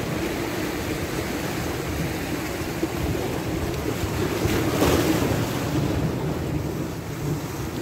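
Sea waves washing and breaking against the rocks of a breakwater, with wind on the microphone; one wave breaks louder about five seconds in.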